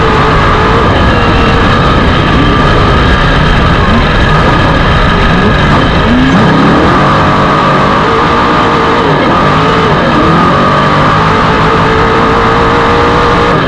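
Off-road desert race car's engine running hard at speed, its pitch rising and falling again and again as it revs up and down, over a loud steady noise.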